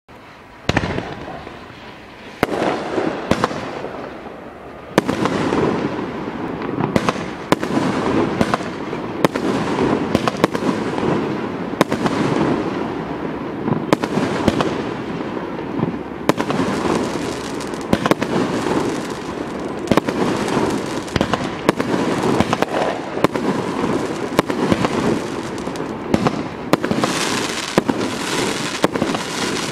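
Consumer firework cake firing a rapid run of shots, each a sharp bang as a shell bursts, over a continuous hiss and crackle of burning effects. It starts about a second in and picks up to a near-continuous barrage after about five seconds.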